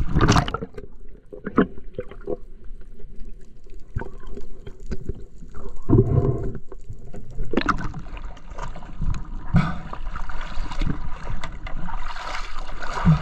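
Seawater splashing and gurgling around a swimmer's camera as it passes between the surface and underwater, with several sudden sharp knocks.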